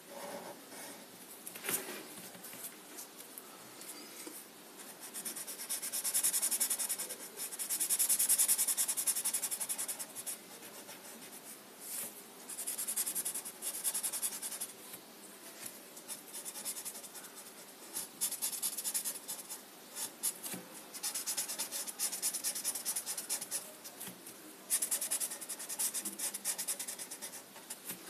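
Black felt-tip marker rubbing and scratching across paper in stretches of quick back-and-forth strokes as areas are filled in solid black, loudest about a quarter of the way in, with a few light taps of the pen.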